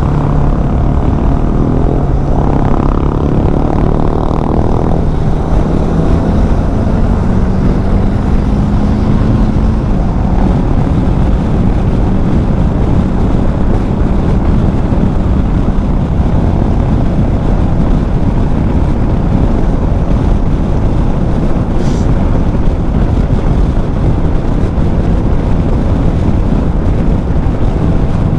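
Bajaj Dominar 400's single-cylinder engine running under way, heard through heavy wind rush on the bike-mounted microphone. The engine note steps up in pitch a few seconds in, then holds steady.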